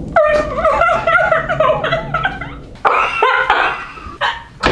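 Women groaning and whimpering with their mouths full, wavering in pitch, then two short coughing gags near the end: retching at a bite of food they can barely swallow.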